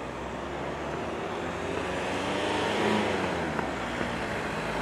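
A vehicle passing out of sight: a rushing rumble builds to a peak about three seconds in, with a low hum that rises and then falls in pitch as it goes by.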